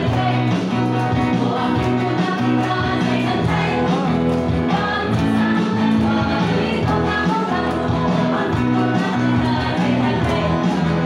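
A group singing an upbeat church song to guitar accompaniment, loud and continuous.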